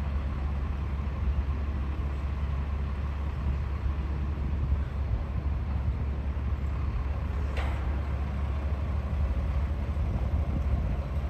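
Steady low rumble of outdoor harbour ambience, with one short sharp click about seven and a half seconds in.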